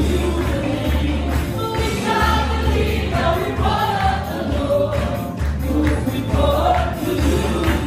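Live praise-and-worship band playing a gospel song, with several voices singing together over electric guitar and a steady low bass line.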